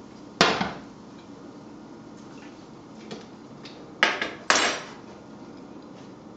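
Kitchenware knocks: a frying pan clunks against the glass-top stove about half a second in, then two more knocks come close together about four seconds in as the plate is handled.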